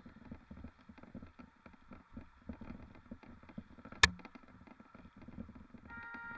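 Mountain bike rolling over rough ground: an uneven low rumble with light irregular rattling. One sharp knock about four seconds in, and a short high-pitched tone near the end.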